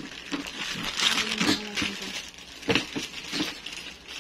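Clear plastic bag crinkling as it is handled and picked open, with a few sharp crackles and light knocks.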